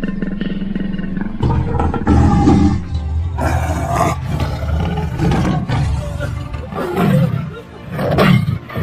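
Tiger roaring repeatedly in several loud, low roars, starting about a second and a half in, over background music with steady tones.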